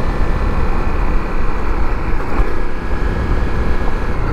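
2018 Honda CRF 250L's single-cylinder engine running as the bike rides along, a loud, steady low rumble.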